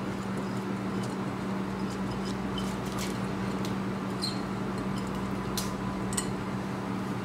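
Water at the boil in a large cooking pot as rice is tipped in, with a handful of light scattered clicks and pops over a steady low hum.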